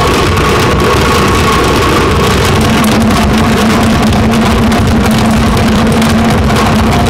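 Noise Box 10 being demonstrated: a loud, steady, engine-like drone of dense noise with a held low hum and a couple of higher steady tones.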